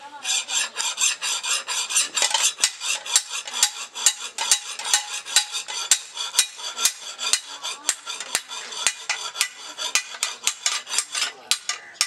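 Small hand hammer tapping a steel blade on a small anvil: quick, even, sharp metallic strikes, about five a second.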